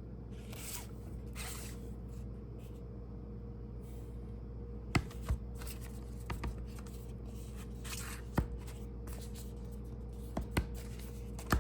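Handling of a product box during unboxing: soft rubbing near the start, then a few sharp light clicks and taps, over a steady low hum.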